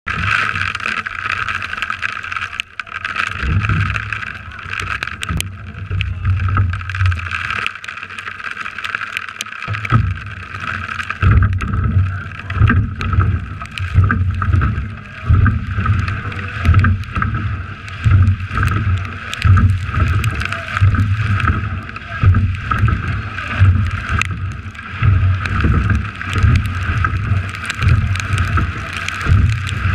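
Water rushing along the hull of a racing rowing eight under way, with wind on the bow-mounted microphone. From about ten seconds in, a low surge repeats roughly every second and a half.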